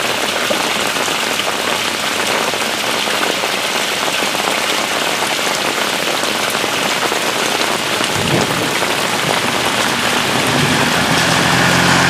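Flash-flood runoff pouring across a lawn into an overloaded storm sewer inlet: a steady rush and splash of water.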